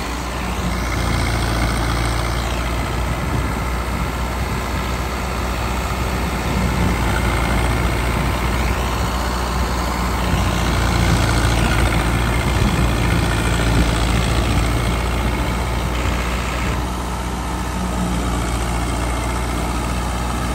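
Tractor diesel engine running steadily at a constant speed, driving a shaft-powered wheat thresher, with the thresher's dense rushing noise over the engine.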